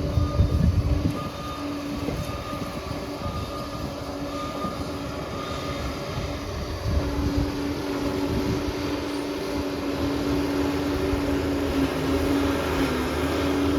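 Crawler bulldozer working: diesel engine running with a steady whine over a heavy low rumble, the whine growing stronger about halfway through.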